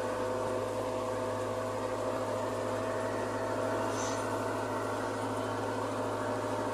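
JCB 3DX backhoe loader's diesel engine running at a steady speed, an even hum with no change in pitch.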